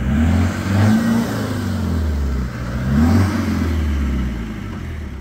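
Land Rover Discovery 300Tdi's 2.5-litre four-cylinder turbo-diesel revving hard in repeated bursts, the revs rising and falling several times and easing off near the end, as the stuck vehicle tries to drive out of a flooded muddy rut.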